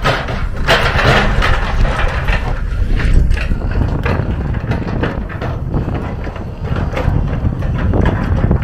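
Kobelco SK250 long-reach excavator's diesel engine running steadily, with rough scraping and knocking as the bucket drags across dirt and stones, loudest in the first second or so.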